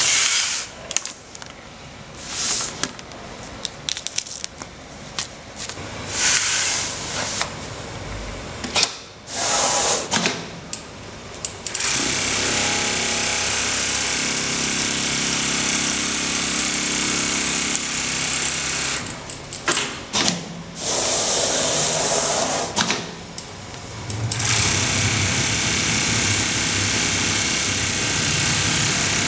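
Automatic template sewing machine running at stitching speed: a dense, fast, steady mechanical drone of the needle drive and moving template carriage. It comes in after about a dozen seconds of irregular short bursts, then drops out twice for a second or two near the two-thirds mark and starts again.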